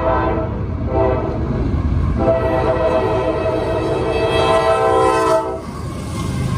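Norfolk Southern diesel locomotive's air horn sounding for the grade crossing: the tail of one blast, a short blast about a second in, then a long blast that stops about five seconds in. The locomotive's engine rumbles as it passes near the end.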